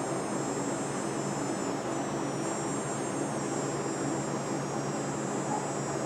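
Steady machine hum with an even hiss over it, level and unchanging.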